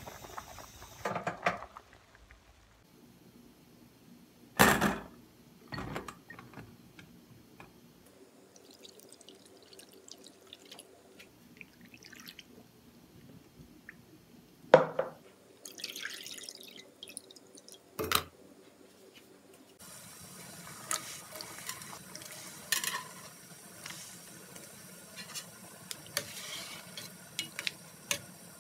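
Kitchen work sounds: water swishing and dripping as sliced rice cakes are rinsed by hand in a stainless bowl, with a few sharp clanks of stainless bowl and pot. Over the last third, a steady hiss with small clinks from the pot of broth on the gas stove.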